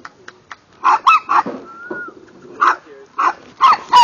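Dogs yapping in a scuffle: a string of about seven short, high-pitched yaps, with a pause near the middle.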